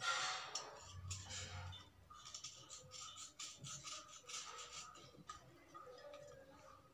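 Kitchen knife blade scraping along a wet slate pencil in short repeated strokes, about three a second, with a louder scrape right at the start.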